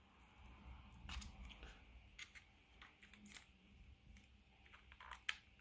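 Near silence with faint, scattered clicks and small scrapes from a Garmin Edge 1030's screen being pried at along its edge, working it free of its double-sided adhesive tape. The sharpest click comes near the end.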